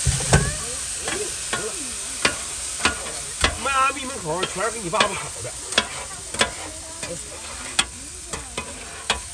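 Egg-pancake wraps sizzling and hissing on a hot flat iron griddle in a cloud of steam, the hiss slowly dying down. Metal spatulas clack and scrape sharply against the griddle as they cut up the wraps, with a few squeaks near the middle.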